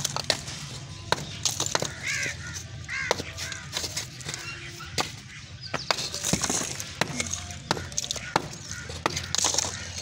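Broken bricks and rubble crunching and clattering in scattered sharp clicks and knocks, with short rustling bursts. A bird calls twice, about two and three seconds in.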